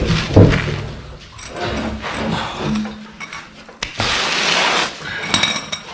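Metal clanking and scraping as a fuel tank, still partly full of fuel, is wrestled down from under a Nissan GU Patrol. A rush of noise lasts about a second from about four seconds in, and ringing metallic clinks follow near the end.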